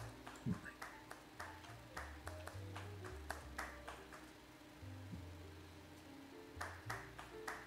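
Faint, irregular clicks and ticks, a few a second, over a low background hum.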